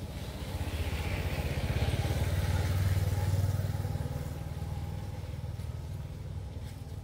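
A motor vehicle passing: a low engine hum that grows louder to a peak about three seconds in, then fades.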